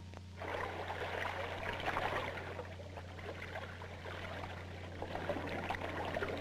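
Animated film soundtrack effects: an irregular crackling, trickling noise over a steady low hum, coming in as the music cuts off.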